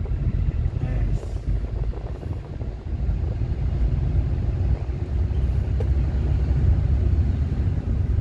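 Steady low rumble of road and engine noise inside a moving Suzuki car's cabin.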